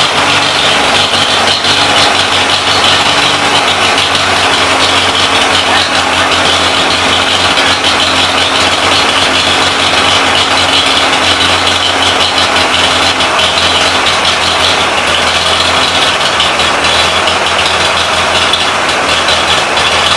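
Biogas-fuelled engine generator set running steadily: a constant low hum with a fast, even firing beat.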